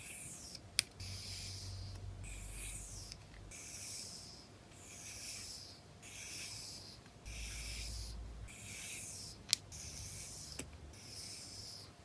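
Photocards and their packaging being handled: about ten short rubbing, swishing strokes, roughly one a second, with two sharp clicks, one near the start and one about three-quarters of the way through.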